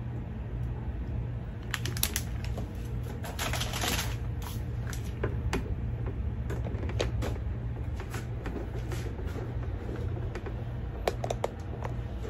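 Handling noise from a plastic-sleeved mesh bag of small oranges being moved and set down, with a louder crinkle about four seconds in and scattered light clicks and knocks of items on a countertop, over a steady low hum.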